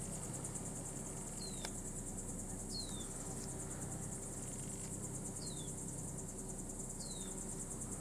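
A steady, high-pitched insect chorus with a fast pulse. Four short falling chirps sound over it, one every second or two.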